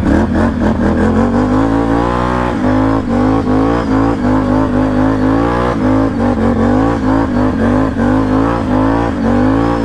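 Can-Am Renegade ATV's V-twin engine revving up and down in quick repeated surges as it spins donuts in loose dirt.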